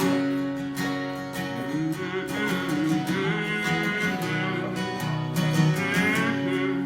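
Instrumental break of a country song: steady acoustic guitar strumming under a wavering lead melody line.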